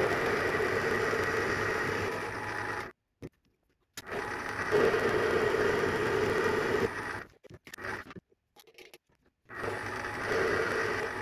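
Small metal lathe running, its cutting tool turning down a metal bar held between chuck and tailstock centre. The sound comes in three stretches, each cutting off abruptly to silence.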